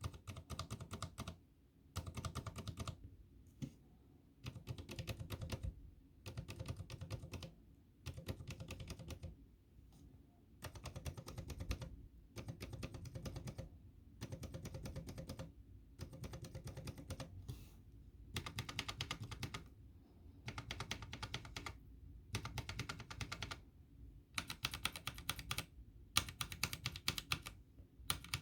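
Tactile mechanical keyboard switches, Zilent Aqua and Gateron Brown, pressed at medium force in quick runs of clicks, each run about a second long with short pauses between. The board is mostly empty of switches, so it adds resonance to the clicks.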